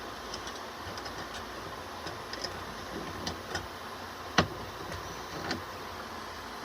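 Scattered light clicks and taps over a steady background hiss, with one sharper, louder click about four seconds in.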